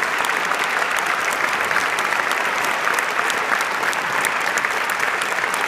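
Audience applauding steadily: a dense patter of many people clapping.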